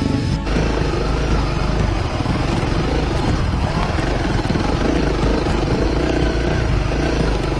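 Honda CRF250L's single-cylinder four-stroke engine running steadily as the motorcycle is ridden along a road.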